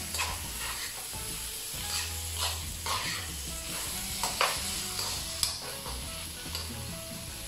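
Chicken livers with chopped onion and peppers sizzling in a non-stick frying pan while being stirred with a spoon, the spoon scraping and knocking against the pan every second or so, sharpest about four and a half seconds in. The livers are still raw, early in the frying.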